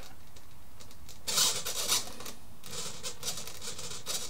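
Scratchy rubbing with light clicks from the sticks of a Futaba T16SZ radio transmitter being worked back and forth, starting about a second in.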